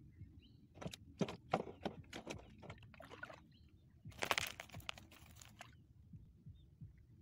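Wet nylon gill net being hauled into a boat by hand with fish caught in it: short bursts of dripping, rustling and slapping, the loudest about four seconds in.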